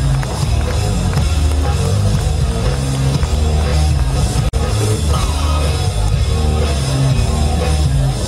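Loud rock music with a pounding bass line and drums. It cuts out for an instant about halfway through.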